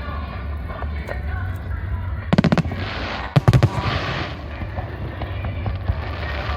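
Fireworks exploding: a rapid string of sharp bangs about two and a half seconds in, then a second volley a second later followed by a crackling hiss, over a steady low rumble of the display.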